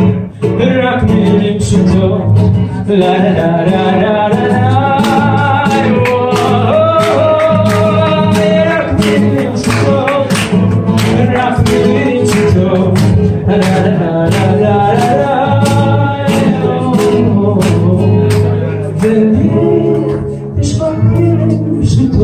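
A man singing a slow melody into a microphone with long held notes, accompanied by a strummed acoustic guitar.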